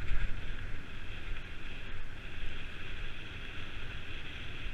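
Steady rolling noise of a mountain bike on a dirt track, with wind buffeting the microphone as a low rumble under a continuous hiss.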